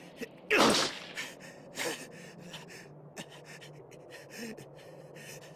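A voiced cartoon character's sharp, loud gasp about half a second in, followed by softer breaths and a smaller gasp near two seconds.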